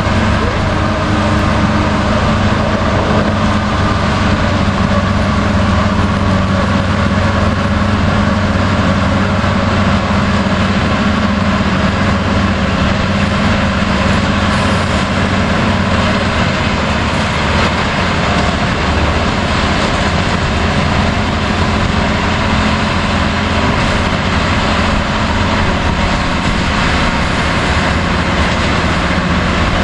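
Mount Washington Cog Railway locomotive and coach coming down the rack track, with a steady, continuous running noise and no distinct knocks.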